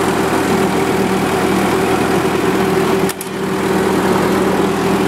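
1943 WWII anti-aircraft gun generator set's engine running steadily, with a single sharp click about three seconds in.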